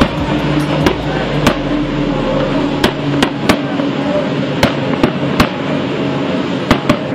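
Outboard engines of a large fleet of motorboats running at speed together in a steady drone, with sharp bangs at irregular intervals, about two a second.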